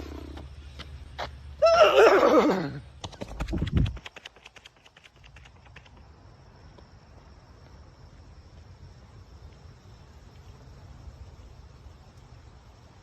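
A horse whinny sound effect: one loud whinny about two seconds in that falls in pitch, over a run of sharp clip-clop clicks. A short low thud comes near four seconds, and after that only a faint hiss with a thin high steady tone.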